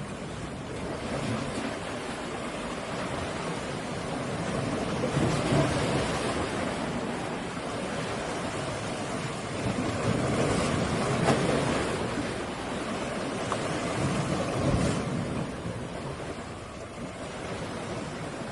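Ocean surf: waves washing onto the shore, the rush swelling and easing several times, with wind.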